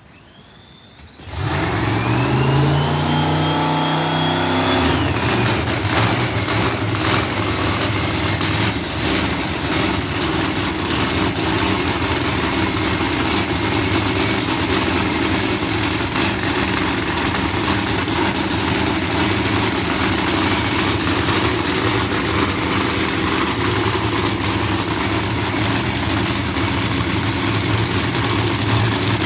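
A drag-racing funny car's supercharged V8 starting up: it bursts in suddenly about a second in, with a whine rising in pitch for a few seconds, then runs loud and steady.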